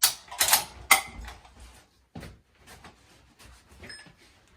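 Rifle being handled in a dry-fire drill: a quick run of three sharp mechanical clicks and knocks in the first second, another knock about two seconds in, then lighter rattling.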